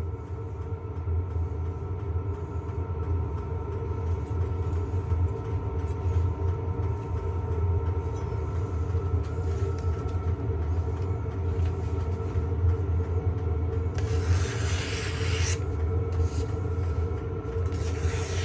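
A 1x30 belt sander's electric motor and belts running steadily with a low hum, joined about fourteen seconds in and again near the end by a brief hiss.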